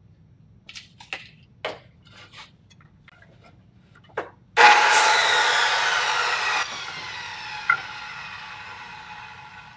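A few clicks and knocks as the tape and saw are handled, then a corded circular saw starts about four and a half seconds in and cuts through a poplar board for about two seconds. The blade then winds down with a slowly falling whine.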